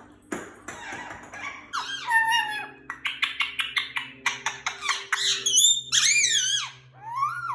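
Indian ringneck parakeet chattering and squawking: a quick string of sharp chirps, then loud squawks that swoop up and down in pitch near the end.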